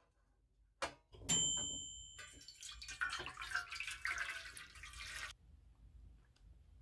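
A sharp metal clank with a brief ringing tone, then hot water pouring and splashing from a stainless saucepan into a metal baking tin for about three seconds before stopping abruptly: filling a water bath for baking.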